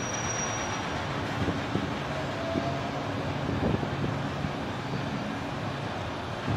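Steady, distant vehicle and engine rumble.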